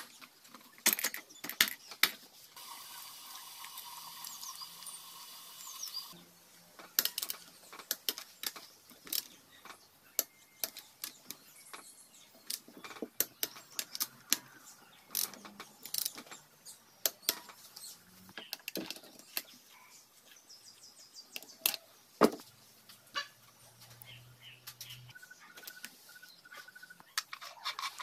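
Scattered metallic clicks and clinks of hand tools and engine parts as the cylinder head cover of a small 150cc engine is fitted and its bolts are run down with a ratchet wrench. A steady hum sounds for about three seconds near the start.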